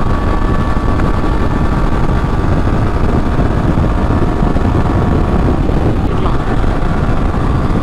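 Motorcycle riding at speed: heavy wind noise on the microphone over the engine and road noise, with a faint steady whine that fades out about five seconds in.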